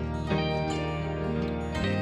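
Soft instrumental background music with plucked-string notes.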